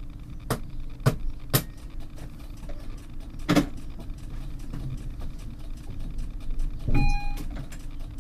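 Tram standing still, its onboard equipment humming steadily, with a few sharp clicks in the first half. Near the end comes a brief clatter with a short beep.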